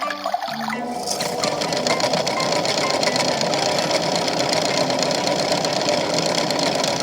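Toy washing machine's small motor whirring steadily as it spins the drum, starting about a second in after a short tune ends.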